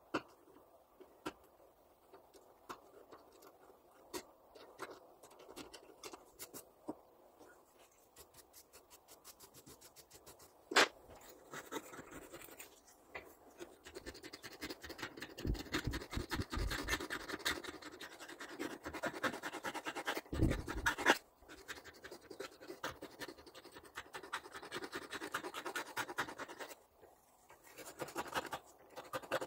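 Hand scraping and scratching on small parts, starting about a third of the way in and going on with a fast, uneven rhythm. Before it come scattered light clicks and one sharper knock.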